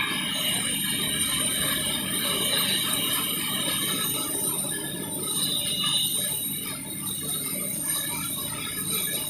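CNC lathe turning a steel pipe flange: a steady cutting noise with high, metallic ringing tones from the tool on the workpiece.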